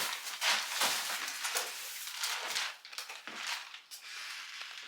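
Irregular rustling and crinkling with scattered light knocks.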